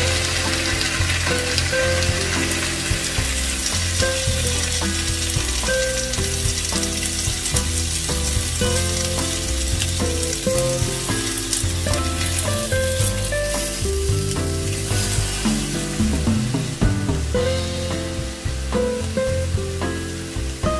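A thin slice of pork sizzling in oil in a nonstick frying pan, with a steady crackling hiss as it browns. Background music with a stepping melody plays throughout.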